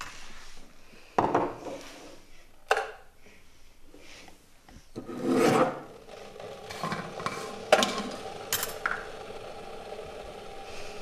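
Kitchenware being handled at a counter: a glass lifted out of a plastic dish rack with clinks and knocks, and a container shaken, a rattling burst about five seconds in. Sharp clicks of glass and lids follow as a glass jar is handled, over a faint steady hum from about six seconds on.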